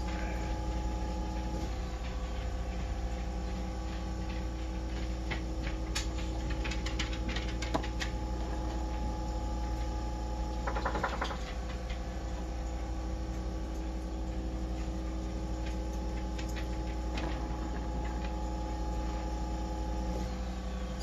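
A steady mechanical hum made of a low drone and several fixed tones, from an appliance or small motor running. Light clicks and a brief crinkling rustle about eleven seconds in come from the canvas being handled on the foil.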